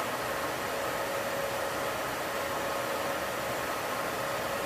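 Steady in-flight cabin noise inside a B-52H Stratofortress: the rush of its Pratt & Whitney TF33 turbofan engines and the airflow, with a faint steady whine.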